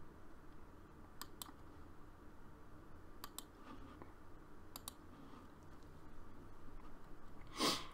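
Faint clicks of a computer mouse, three pairs of quick clicks a couple of seconds apart, over a low steady room hum. A short breath comes near the end.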